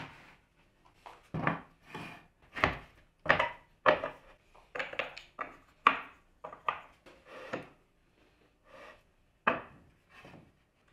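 Wooden boards knocking and clunking against wooden clamp bars and the bench as they are handled and set into a wooden panel clamp. The knocks are irregular, one or two a second, with a short pause about two-thirds of the way through.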